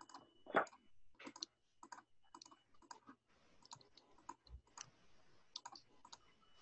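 Faint, irregular clicks of a computer mouse button and keyboard key, a few each second: G-key presses alternating with left-button clicks. The strongest click comes about half a second in.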